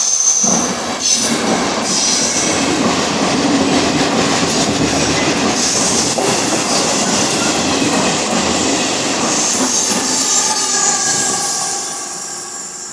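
Push-pull regional express train of UIC-X coaches with an E464 electric locomotive passing through the station at speed. Its wheels and bodies rush past loudly, with thin, high-pitched ringing from the wheels on the rails, and the sound fades in the last couple of seconds as it draws away.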